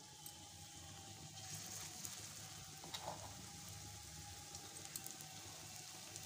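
Gram-flour (besan) pakora batter frying in hot oil in a kadhai: a faint, steady sizzle with scattered small crackles.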